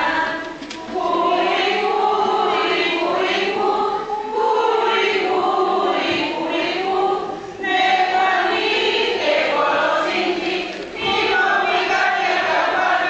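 A group of voices singing a song in Nahuatl together, in phrases broken by short pauses for breath.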